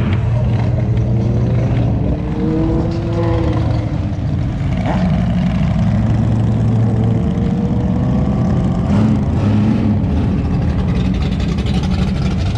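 Loud exhausts of classic cars and motorcycles driving past one after another, with engines revving and the engine notes rising and falling as each goes by.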